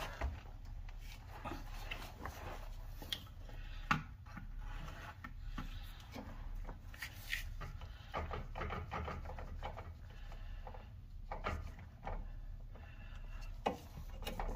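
Scattered clicks, knocks and scraping of metal parts being handled under a car while a new CV axle is fitted into place, with a sharper knock about four seconds in.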